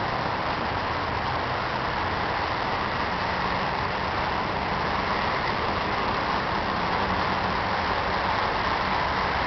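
A steady low engine hum under an even hiss, unchanging and with no distinct events.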